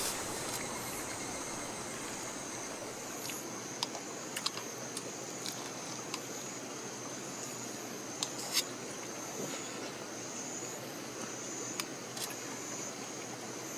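Steady hiss of running water under a constant high insect trill, with a few light, sharp clicks of chopsticks against a metal pan scattered through.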